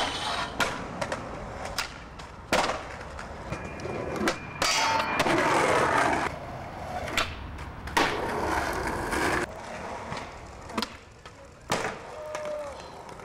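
Skateboard on concrete: urethane wheels rolling, broken by about ten sharp pops, board slaps and landings.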